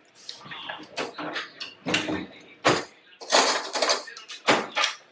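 Kitchen clatter of plates, pans and cutlery being handled while a meal is served up: an irregular run of sharp clinks and knocks.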